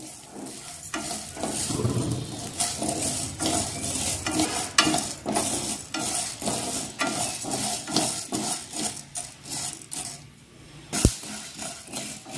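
Sago pearls roasting in ghee in a non-stick frying pan, sizzling, while they are stirred and scraped around the pan in quick repeated strokes. One sharp knock against the pan about eleven seconds in stands out as the loudest sound.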